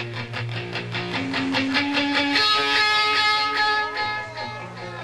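Live rock band playing, recorded from the soundboard: electric guitar picks quick runs of notes, then about two seconds in moves to long held, sustaining notes over low notes underneath.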